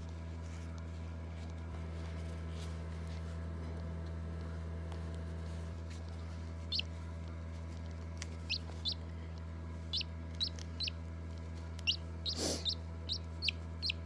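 A chick peeping: short, high peeps, a few scattered from about seven seconds in, then coming more quickly, over a steady low hum.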